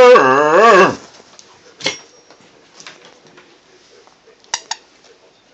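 A dog toy's sound-maker giving a loud, wavering squeal that ends about a second in, followed by a few faint clicks and taps as the dog plays with it.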